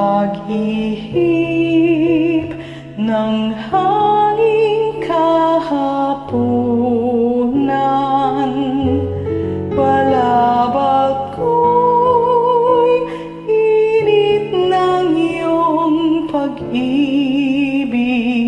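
A woman singing a slow song with vibrato on the held notes over a karaoke backing track.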